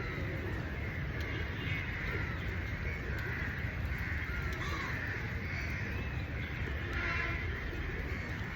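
Steady rain with birds calling again and again over a low rumble.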